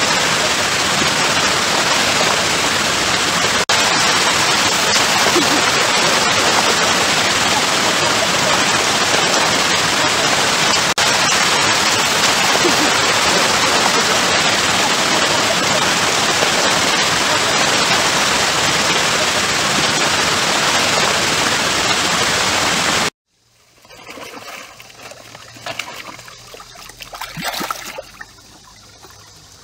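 Loud, steady rush of water pouring out, which cuts off abruptly about 23 seconds in. Quieter splashing and sloshing follow as a net is drawn through shallow water full of fish, with a brief louder splash near the end.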